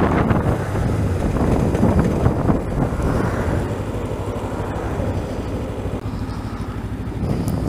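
Kawasaki Ninja 300's parallel-twin engine running on the move, with wind noise buffeting the microphone; the wind eases after about three seconds as the bike slows behind traffic.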